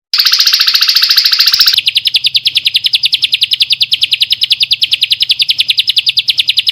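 Songbird's song: a dense, buzzy trill for about a second and a half, then a fast, even, high trill of about a dozen notes a second.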